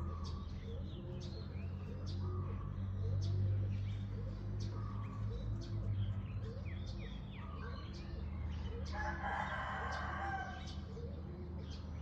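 Small birds chirping with short high calls, and a rooster crowing once about nine seconds in, over a steady low rumble.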